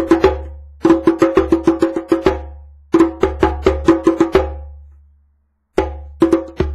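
Djembe played by hand: phrases of quick, sharp strokes, each phrase about a second and a half long with short breaks between them. The drumming stops briefly about five seconds in and picks up again about a second later.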